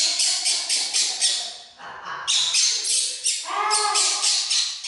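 Baby monkey crying with repeated shrill shrieks, about four a second, in two runs broken by a short pause about two seconds in.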